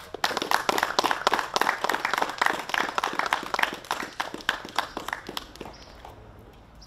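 Audience applauding, a dense patter of clapping that swells quickly and dies away over the last couple of seconds.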